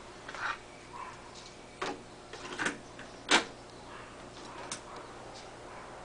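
Several sharp mechanical clicks and clunks, the loudest a little past three seconds in, as the piano-key transport controls of a vintage Fortex double cassette deck are worked to play a cassette.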